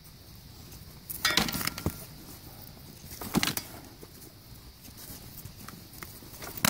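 Sparring swords and bucklers striking each other: two loud clashes about a second and three and a half seconds in, and a sharp clang right at the end that rings briefly.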